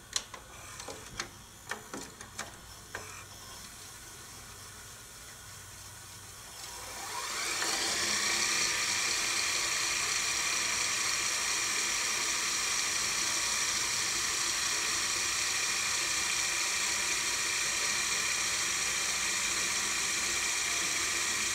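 A VCR rewinding a VHS cassette: a few mechanical clicks in the first three seconds as the deck engages, then the rewind motor spins up with a rising whine about seven seconds in and settles into a steady high whir of tape winding at speed.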